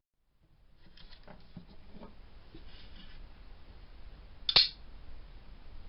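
Handling noises on a workbench: scattered light knocks and clicks, with one sharp click about four and a half seconds in.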